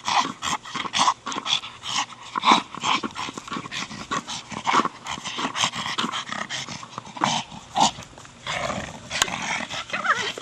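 Staffordshire Bull Terrier growling and huffing during rough play with a hard plastic ball, a rapid, irregular run of short sounds with no let-up.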